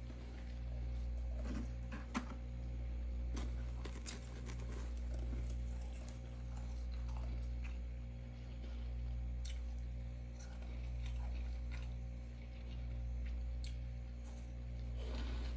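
A steady low hum that swells and fades about every two seconds, with scattered soft crackles and crunches of freezer frost being handled by a gloved hand; the sharpest click comes about two seconds in.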